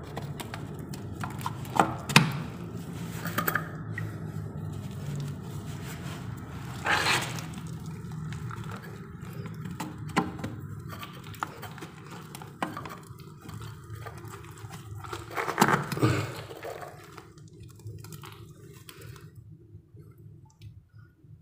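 Scattered knocks and scrapes of hands working a water pipe joint in a muddy hole, with a few louder clunks. A low steady hum sits underneath and fades away about three quarters of the way through.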